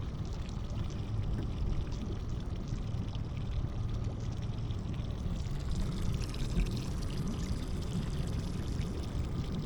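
A steady rush of moving river water with a low rumble underneath, even throughout with no clear strokes or rhythm.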